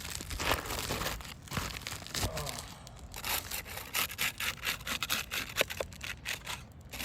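Roof shingle being pried up and broken loose from its seal: irregular crackling, scraping and tearing.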